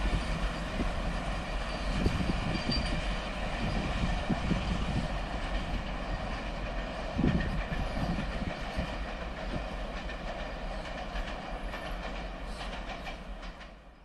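Container freight train rolling away down the track, its wheels knocking irregularly over the rail joints over a steady rolling rumble. It grows slowly fainter as the train recedes.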